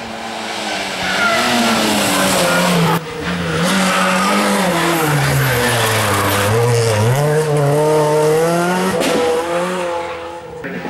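Rally car engine revving hard on a special stage, its pitch rising and falling as the driver works the throttle and gears, with a deep dip in pitch about midway before it climbs again. The sound breaks off abruptly about three seconds in and resumes at once.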